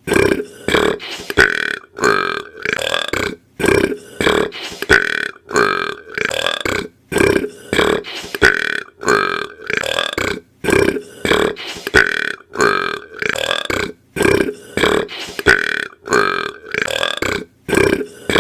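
A boy burping over and over, short loud burps two or three a second. The same run of burps comes round again about every three and a half seconds, like a loop.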